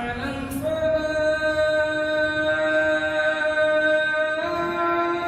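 A solo voice singing long, held notes: brief notes in the first second, then one long steady note, then a step up to a higher held note about four and a half seconds in.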